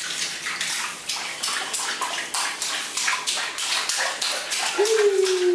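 Water splashing in an inflatable baby bath tub, hands and kicking feet slapping the water about four times a second. Near the end a long drawn-out voice comes in, sinking slowly in pitch.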